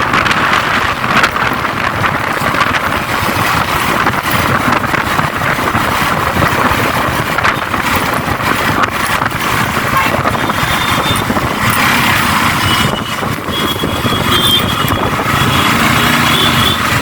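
Road traffic and wind noise heard from a moving motorcycle, with a few high steady tones in the second half.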